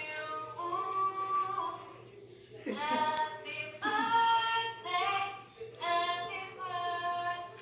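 Several voices, women's and a child's, singing unaccompanied in long held notes with short breaks between phrases, heard over a phone call.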